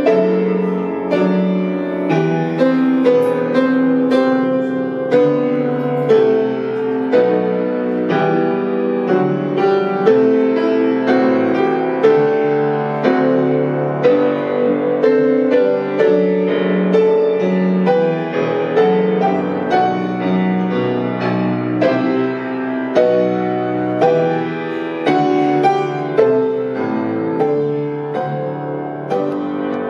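Solo grand piano being played: a continuous flowing passage of melody over chords, notes struck one after another and ringing into each other, swelling and easing with the phrasing.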